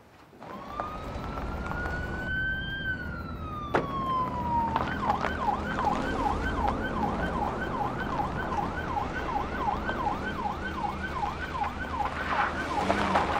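Police car siren: one long wail that rises and then falls slowly, then switches about five seconds in to a fast yelp sweeping up and down about three times a second, over a steady low rumble.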